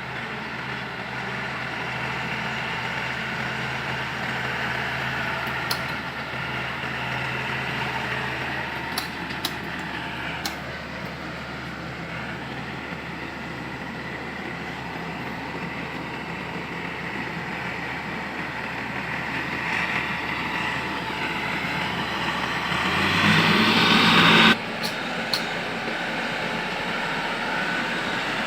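Rice combine harvester running: a steady engine drone under a noisy mechanical haze. It swells louder near the end, then drops away suddenly, with a few sharp clicks.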